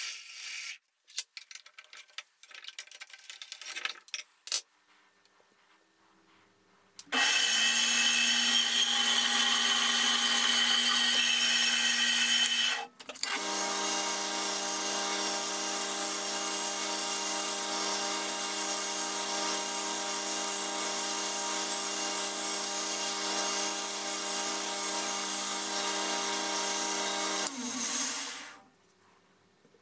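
A few light clicks and knocks, then a bandsaw running and cutting through a wooden tool handle for about six seconds. After a short break a 2x72 belt grinder runs steadily while the wooden handle is sanded against the slack part of its belt, and it spins down near the end.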